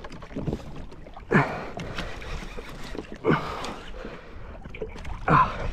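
Water lapping against a kayak hull while a heavy conventional fishing reel is cranked against a fighting fish, with three louder rushes of sound about two seconds apart.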